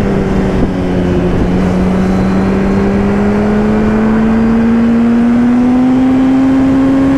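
Motorcycle engine, a Yamaha R1 inline-four, running steadily under way, its note climbing slowly as the bike gently picks up speed, with wind rush over the microphone. The sound cuts off suddenly at the very end.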